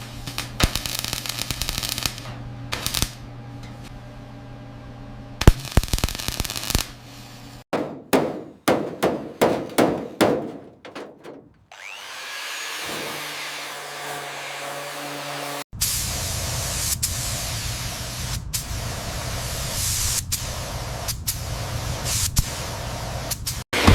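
Workshop power tools running in a series of short cuts. In the middle comes a run of sharp strikes about two a second, and in the later part a steady hissing noise.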